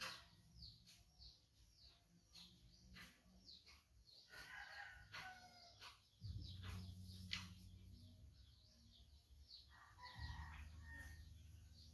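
Faint outdoor birdsong: many short chirps, with two longer calls, one about four seconds in and one near ten seconds in. A low rumble joins from about six seconds in.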